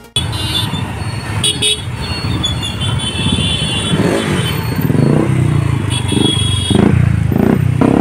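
Motorcycle and car engines running in a slow, jammed road traffic crowd, with vehicle horns honking three times: about a second and a half in, around three seconds in, and around six seconds in.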